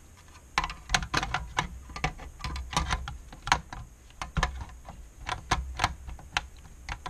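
Sheet-metal rear cover of an LCD monitor being set onto its metal chassis and pressed into place: a string of irregular light clicks and knocks, metal against metal, with a few dull thumps, starting about half a second in.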